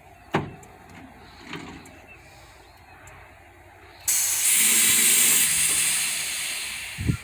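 A sharp click, then about four seconds in a sudden loud hiss of compressed air being let out of the carrier's air brake system, lasting about three seconds and tapering off.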